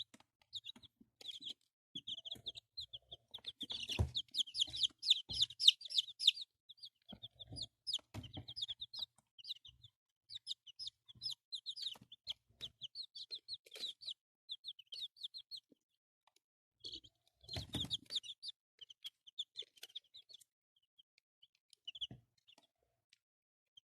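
Chicks peeping loudly: trains of short, high cheeps, busiest about four to six seconds in, with a few soft thumps. The owner puts the loud peeping down to too little room in the box.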